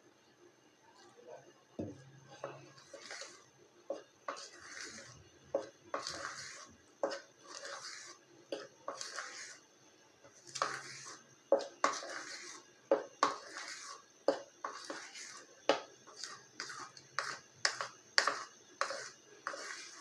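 Metal spoon stirring thick chocolate cake batter in a ceramic bowl, scraping and clinking against the bowl's sides at about one stroke a second.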